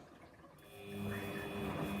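Samsung washing machine's drum motor starting up again after a brief pause in the wash cycle, a steady electric hum with a thin whine building from about half a second in.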